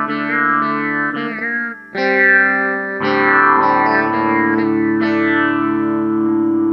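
Line 6 Variax modeling guitar set to a sitar sound and tuned to DADGAD, strummed and picked over ringing open-string drones with a bright, buzzy sitar-like twang. A fresh strum comes at about two seconds and another at three, when a deeper drone note joins and rings on.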